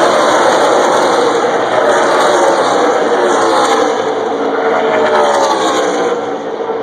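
NASCAR Camping World Truck Series race trucks' V8 engines running at full speed past the stands, one after another, each engine's pitch dropping as it goes by.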